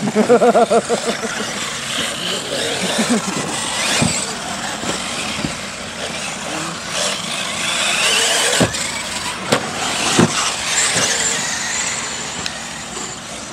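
Electric radio-controlled off-road cars driving on a dirt track: high motor whine rising and falling in pitch with the throttle over a haze of tyre and gravel noise, broken by several sharp knocks of landings or hits, the clearest about four seconds in and a cluster around nine to ten seconds in.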